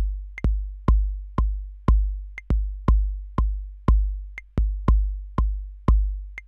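Bass drum sample from a Native Instruments Maschine MK3 step sequencer playing a looped kick pattern, about two hits a second, each a sharp attack with a deep boom that dies away. One kick is nudged slightly off the beat, so the spacing is briefly uneven, and a lighter, higher click sounds about every two seconds.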